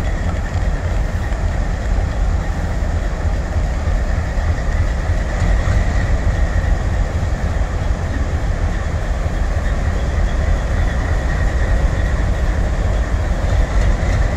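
Twin ALCO WDM-3A diesel locomotives running at low power as they creep forward to couple onto a train. Their engines make a steady, deep rumble with a thin high whine above it.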